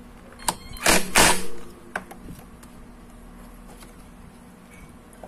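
DeWalt cordless impact wrench with a 10 mm socket firing two short bursts about a second in, driving home the bolts of a scooter's magneto cooling fan. A sharp click comes just before and just after the bursts, then only a low steady hum.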